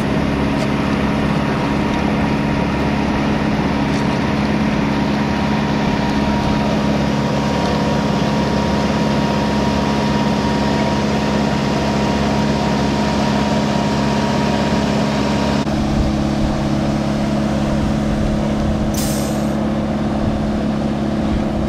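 An engine running steadily at constant speed, with a thin high whine that cuts off about two-thirds of the way through and a short hiss near the end.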